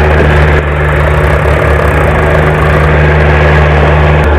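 Eicher tractor's diesel engine running steadily as it pulls a trolley fully loaded with soil. The engine note shifts slightly near the end.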